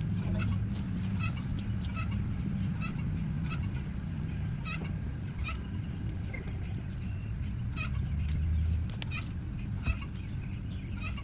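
A bird calling in short chirps repeated roughly every half second or so, over a steady low rumble.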